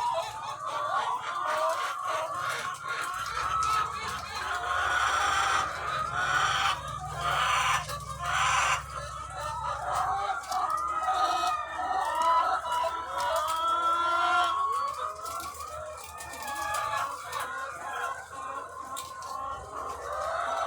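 Dense chorus of a large flock of egg-laying hens clucking and calling, many short calls overlapping without a break. A low hum runs under it from about three seconds in until about ten seconds in.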